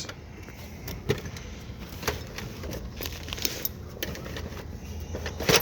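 Metal hand tools clicking and clinking as they are handled in a machinist's toolbox drawer: a few scattered light knocks, the loudest near the end.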